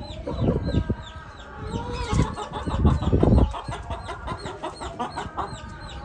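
Aseel hen cackling in two louder bouts, about half a second and three seconds in. It is the throaty pre-laying cackle that the keeper takes as a sign she will soon start laying. Small birds chirp rapidly and steadily behind it.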